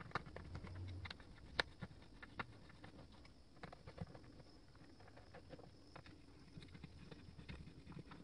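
Faint, scattered clicks and light taps of a small Allen key turning Allen bolts out of an electric skateboard's battery cover, with one sharper click about one and a half seconds in.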